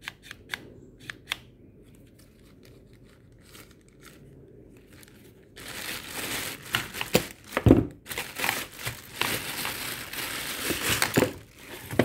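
Plastic packaging crinkling and rustling as parts are handled in a cardboard box, starting about halfway in, with a few light clicks near the start and one dull knock during the rustling.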